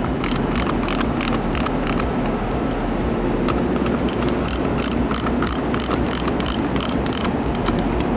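Ratcheting wrench clicking in quick runs, about three clicks a second, as it snugs down the nuts on a bolted flange fitting's studs, over a steady background hum.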